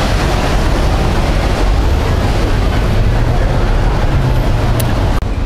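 Loud, steady rumble of a vehicle in motion, with a low hum running under it, cut off abruptly about five seconds in.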